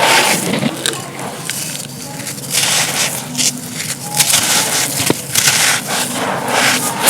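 Dry, crumbly material being crushed and crumbling in a run of gritty crunches and crackles, some drawn out and some short.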